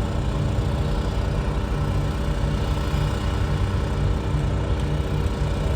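Ship's diesel engines running with a steady low rumble and a constant hum.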